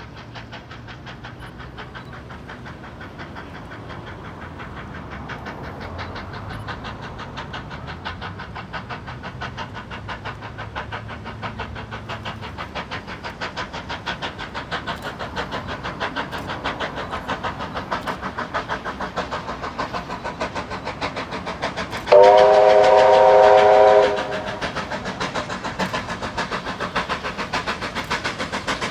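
Steam locomotive 3801, a C38 class Pacific, working toward the listener, its exhaust beating fast and evenly and growing steadily louder. About three-quarters of the way through, its whistle sounds a chord for about two seconds, the loudest sound.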